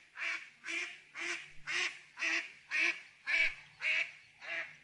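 Waterfowl calling: a steady series of short, evenly spaced calls, about two a second.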